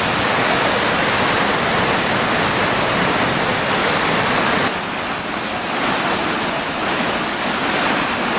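Rushing water of a fast river or waterfall, a loud steady hiss that dips a little past halfway.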